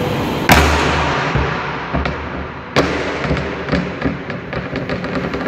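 A large UHMWPE escape pipe dropped onto a concrete floor in a shock-resistance drop test: a loud thud about half a second in, another hard knock near three seconds, then quickening, fading knocks as the pipe bounces and settles.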